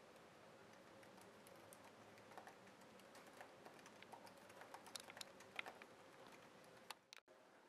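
Faint typing on a MacBook Pro laptop keyboard: scattered key clicks that grow busier about four seconds in, over a low steady room hum.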